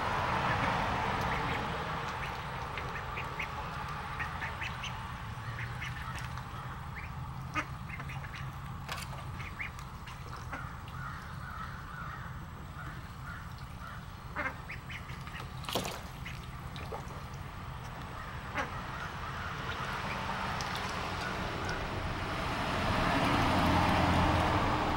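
Ducklings calling while they paddle and dabble in a shallow plastic wading pool, with water splashing throughout. A few sharper splashes or knocks stand out, the loudest about 16 s in, and the splashing grows louder near the end.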